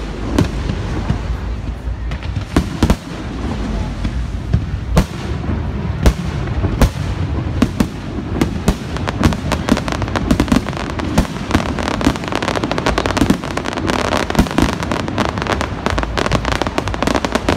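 Fireworks display: aerial shells bursting with sharp bangs over a low rumble, a few seconds apart at first, then coming thick and fast from about halfway on.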